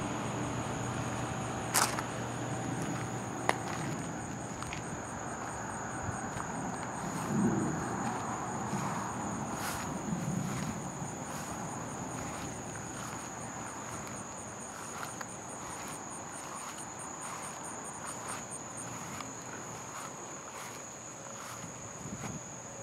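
Night insects, crickets among them, calling steadily: a constant high buzz with an even, rhythmic chirp pulsing above it that fades out about three-quarters of the way through. Two sharp clicks sound near the start.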